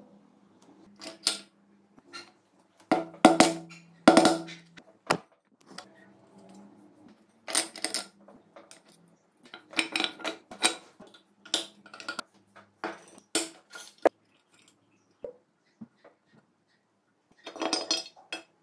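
Metal clinks and knocks of small parts being handled and pulled from the aluminium lower crankcase of a Honda CBR250 four-cylinder engine as the oil pump is removed. The strikes are irregular, a few every couple of seconds, with the loudest, ringing ones around three to four seconds in and another cluster near the end.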